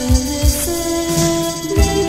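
Recorded music: held notes that shift in pitch every second or so over a low, repeating beat.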